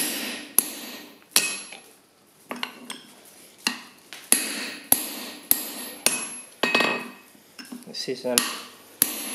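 Hand hammer striking a handled slot punch driven into a red-hot steel bar on an anvil, punching a mortise slot through the bar. About a dozen sharp metallic blows, roughly one every half-second to second, each ringing briefly, with a short pause about two seconds in.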